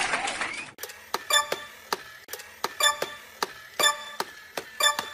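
Regular sharp ticks, a few a second, each with a short bright ring, starting about a second in.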